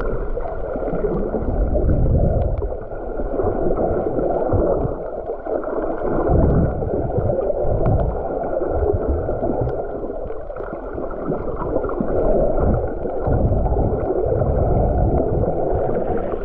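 Muffled sloshing and gurgling of sea water while snorkeling, with irregular low surges every second or two.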